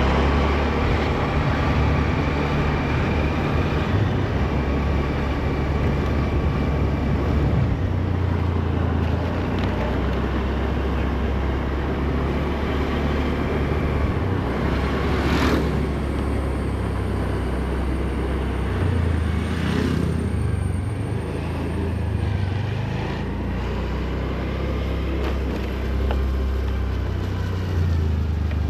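Train running past at close range: a steady loud rumble with a low hum that shifts in pitch now and then.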